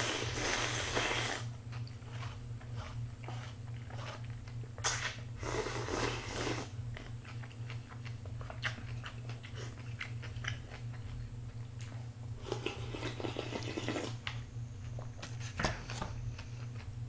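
Close-up eating sounds: food pushed from a foam takeout tray into the mouth with chopsticks and chewed. The eating comes in three noisy bursts of a second or two: at the start, about five seconds in and about thirteen seconds in. Small clicks fall between the bursts, over a steady low hum.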